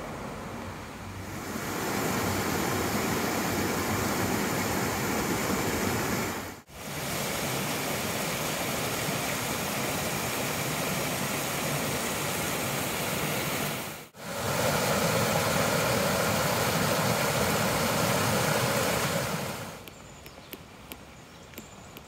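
Shallow stream rushing over stones: a steady rush of water that comes in about two seconds in, cuts out for an instant twice, and drops away shortly before the end, leaving a quieter background with a few light ticks.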